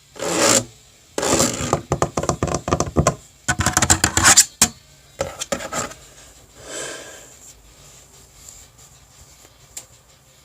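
Hairbrush bristles dragging through hair in quick scratchy strokes, a rapid crackle within each stroke; several strong strokes in the first half, then a few fainter ones.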